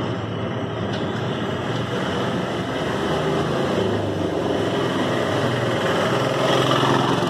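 A motor vehicle engine running steadily, growing a little louder in the second half.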